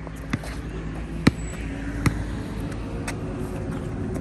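A basketball bouncing on a court floor: four sharp bounces about a second apart, over a steady low background hum.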